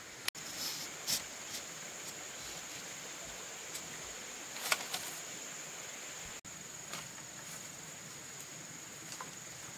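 Steady high-pitched drone of insects, with a few light knocks and clacks of bamboo being handled; the sharpest knock comes about halfway through.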